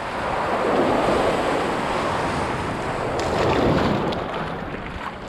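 Small surf waves washing in around the feet in the shallows, surging about a second in and again near four seconds, with light splashing in the second half and wind on the microphone.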